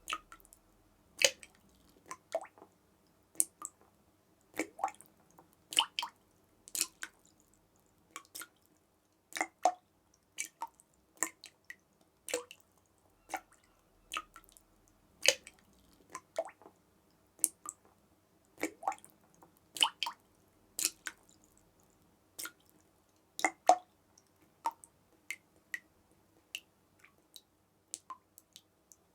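Water drops falling one at a time at an irregular pace, about one or two a second. Each is a sharp plink, many with a short ring, and they come between quiet gaps.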